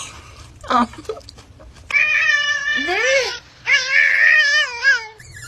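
Cat yowling: two long, drawn-out meows with a wavering pitch, one after the other.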